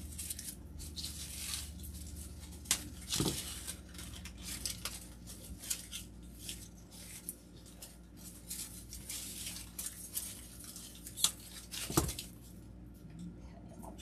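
Rustling and crinkling of artificial flower stems and foliage being handled and tucked into a wreath, with a few sharp clicks and knocks, the loudest two near the end.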